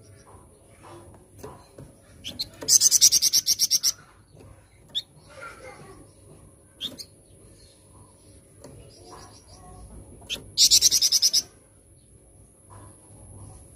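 Flamboyan songbird singing: two loud bursts of fast repeated high notes, the first about a second long and the second shorter, with softer scattered chirps between them.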